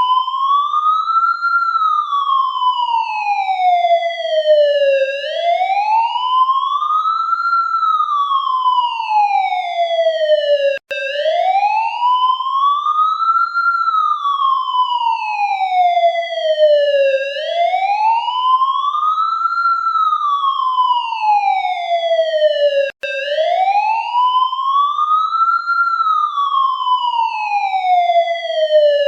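Police siren on its wail setting: the pitch climbs quickly, then sinks slowly, about once every six seconds, over and over. It cuts out for an instant about eleven seconds in and again near twenty-three seconds, where the recording loops.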